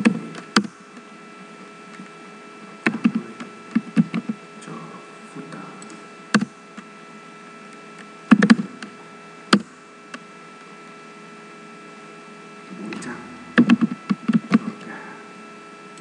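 Keystrokes on a computer keyboard come in short scattered bursts, with a few single clicks between them. A steady electrical hum sits under the typing throughout.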